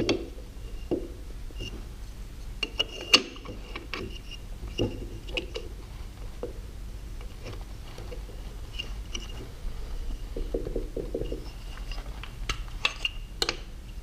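Light clicks, taps and knocks of wooden plane parts, a wenge plane body and its pieces, being handled and fitted together on a wooden bench. There is a sharper knock about three seconds in and a quick run of clicks near the end.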